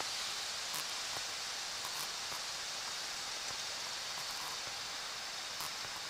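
Steady hiss of the aircraft's radio and intercom audio feed between transmissions, with a few faint clicks.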